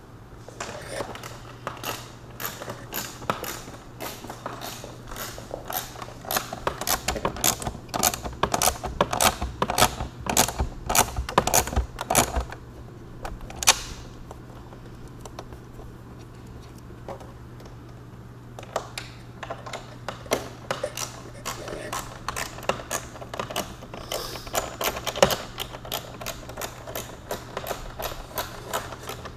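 Irregular rapid clicking and tapping of hands and hand tools on the motorcycle's plastic windscreen and fairing parts as the screen is fitted, over a low steady hum. The clicking stops for a few seconds about halfway through, then resumes.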